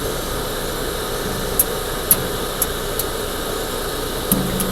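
Steady mechanical hum, like an idling engine or running machine, with a few faint light clicks over it.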